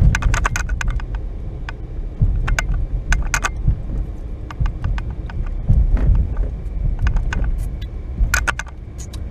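Car interior with the engine idling as a steady low rumble, and a scattered series of small sharp clicks and jingles, clustered near the start, around three seconds in and near the end.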